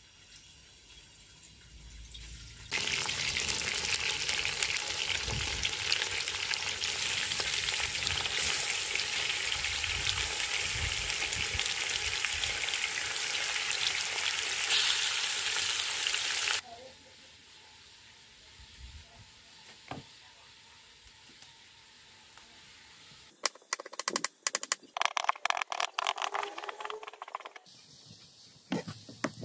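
Raw pork pieces drop into a hot metal cauldron over a wood fire about three seconds in and sizzle loudly and steadily; the sizzling cuts off suddenly a little past halfway. Near the end a kitchen knife chops green onions on a wooden cutting board in a quick run of taps.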